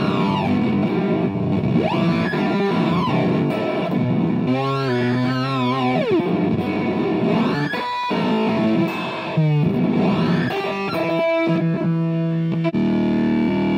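Electric guitar played through a Magpie Pedals Fruits effects pedal, with distorted held notes. The tone sweeps up and back down in repeated swoops every couple of seconds.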